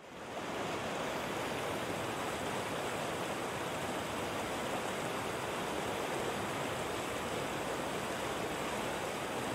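Steady rush of flowing river water, fading in over the first half second.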